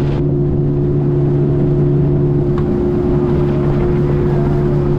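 Outboard motor of a small fishing boat running at a steady cruising speed, its drone holding one pitch, over the rush of the hull through choppy water.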